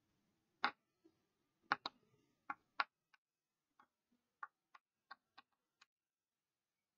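Chalk tapping and clicking against a chalkboard as words are written: about a dozen short, sharp clicks at irregular intervals.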